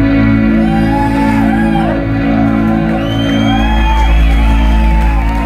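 Live instrumental rock band holding a loud, sustained electric guitar chord, with audience members whooping and shouting over it. A deep bass note swells in about three and a half seconds in.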